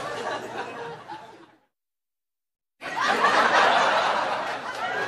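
Laughing voices fade out and cut to about a second of dead silence. Then a loud burst of laughter and chatter starts.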